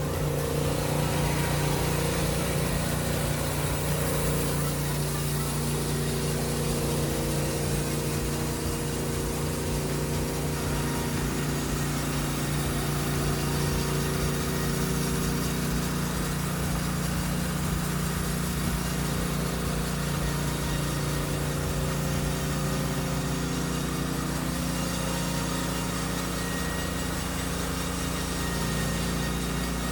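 Norwood LumberPro HD36 portable band sawmill running with its engine at a steady speed, over a broad rushing noise.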